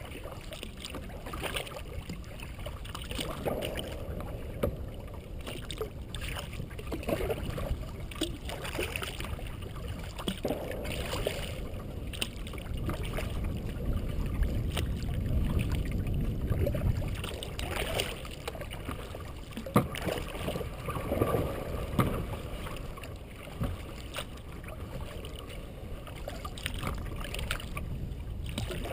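Kayak paddle strokes splashing and dripping, one every second or two, over a steady low rumble.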